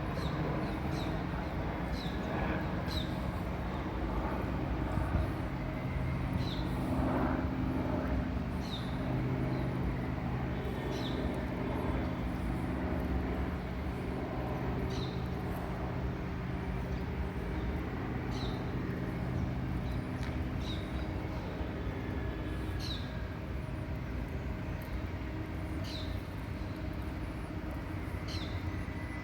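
Outdoor ambience of steady low traffic or engine hum, with a small bird's short, high chirp repeating every second or two. The hum's steady tone drops away about two-thirds of the way through.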